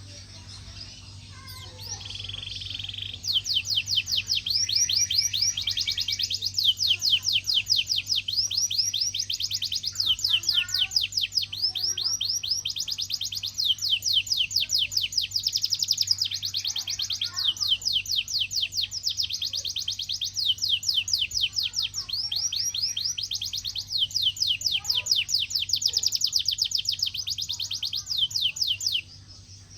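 Domestic canary singing a long, loud song of rapid trills, each trill a fast run of repeated sweeping notes. The song runs almost without a break and stops abruptly near the end. A steady low hum runs underneath.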